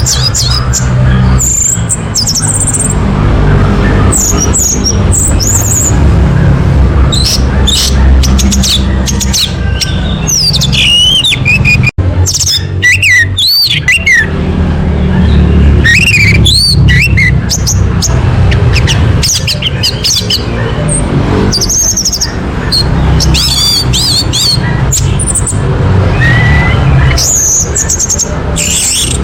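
Orange-headed thrush singing: short, varied whistled and warbling phrases, repeated with brief pauses, over a steady low rumble. The sound cuts out for an instant about twelve seconds in.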